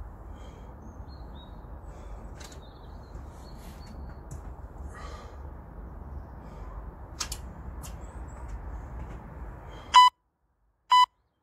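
Workout interval-timer countdown beeps: two short, loud, pure beeps a second apart, starting about ten seconds in, marking the end of a timed exercise round. Before them there is a steady outdoor background hum with a few faint bird chirps, and it cuts out suddenly as the beeps begin.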